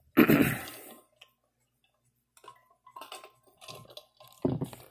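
A short, loud burst of breath and throat noise from a man near the start, then about two seconds of faint scattered clicks.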